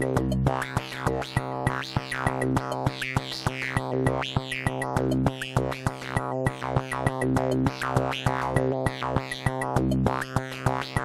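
Electronic music played live on a Korg volca drum and an Arturia MicroFreak synthesizer: a steady drum-machine rhythm of sharp hits under a held low synth note, with bright, squeaky synth tones sweeping up and down.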